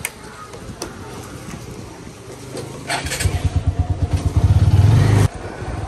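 Motorcycle engine running at idle, then revved as the bike pulls away: a pulsing engine note that gets much louder from about three seconds in and dips sharply just before the end.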